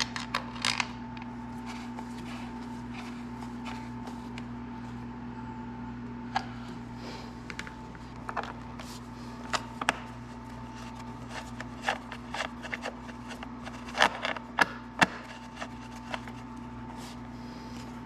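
Scattered light clicks and knocks of hand tools and screws being handled while working on a motorcycle's front end, the sharpest coming in a quick cluster about two-thirds of the way through, over a steady low hum.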